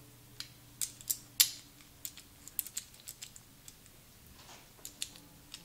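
Irregular light clicks and taps of small metal bolts and the ignition coil's mounting parts being handled and fitted by hand, the sharpest about one and a half seconds in.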